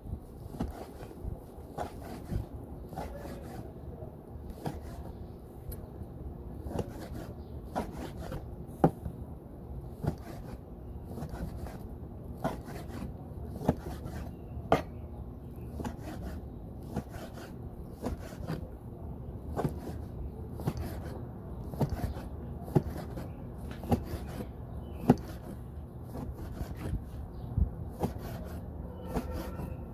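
Kitchen knife chopping goat skin on a plastic cutting board: uneven knocks of the blade striking the board, about one a second, with light scraping between.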